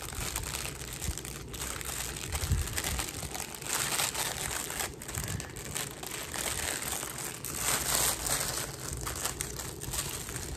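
Packaging being crinkled and rustled by hand in irregular crackling bursts.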